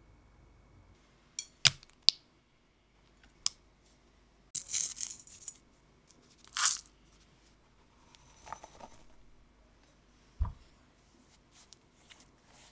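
A series of separate kitchen handling sounds: a few sharp clicks and taps, a second-long rustling burst, a short crackle, a faint scraping, and a soft thump near the end. They come as a salt tub is handled, a pinch of salt is dropped onto softened butter in a glass bowl, and powdered sugar is added.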